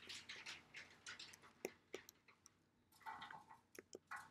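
Near silence: room tone with a few faint, sharp clicks scattered through it.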